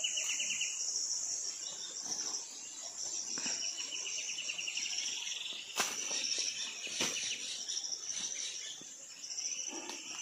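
Insects calling in the countryside: a steady high-pitched buzz with a rapidly pulsing, lower trill that fades in and out. Two short clicks come about six and seven seconds in.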